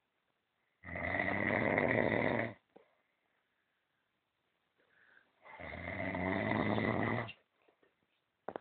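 A man snoring: two long, buzzing snores of about two seconds each, the second starting about four and a half seconds after the first.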